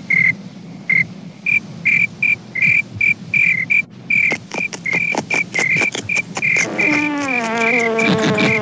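Insect sounds: a field cricket chirping in short repeated chirps, about two a second and quickening. About four seconds in, rapid dry clicking joins them. Near the end comes a bee's buzz that drops in pitch.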